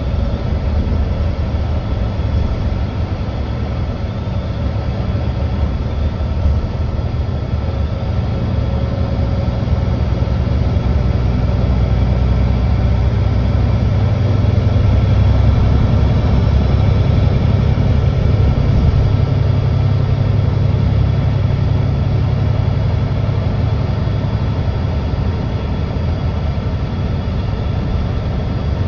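Mercedes-Benz O530 C2G Hybrid (Citaro articulated hybrid bus) on the move, heard on board: a steady low engine and drivetrain rumble with faint steady whines above it. It grows louder about halfway through, then eases off.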